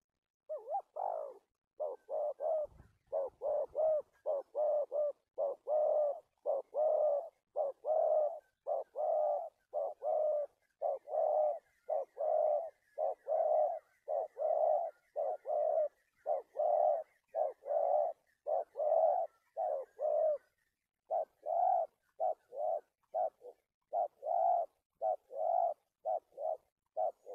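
Spotted dove cooing in a long run of short, low coos, a little under two a second, with a brief pause about twenty seconds in.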